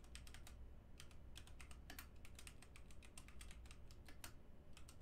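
Faint typing on a computer keyboard: an uneven run of quick key clicks as a terminal command is typed in.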